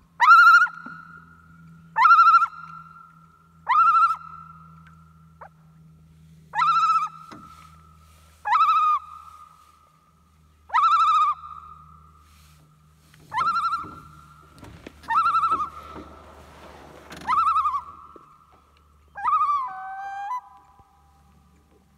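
Common loon calling: a series of short rising, wavering cries, about one every two seconds, the last one breaking and dropping lower. It is a parent loon excited by the boat while its chick is nearby. A faint low hum runs underneath.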